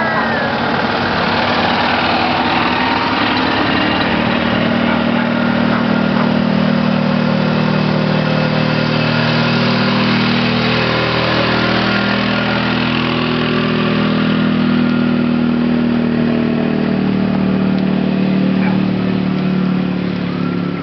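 Small gasoline engines of golf carts and utility vehicles running steadily as they drive slowly past, several engines overlapping.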